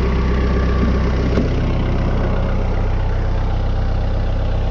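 Tractor engine idling steadily, with a single click about a second and a half in, after which it runs a little quieter.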